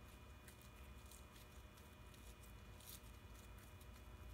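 Faint sticky clicks and squelches of purple glue slime, activated with sodium tetraborate, being kneaded and pulled between the fingers.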